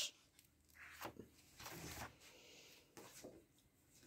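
Near silence, broken by a few faint, brief handling noises, about three in all, as coloring books are shifted about on a table.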